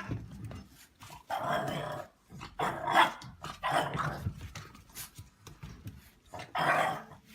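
A dog vocalizing in about four short outbursts, the loudest about three seconds in.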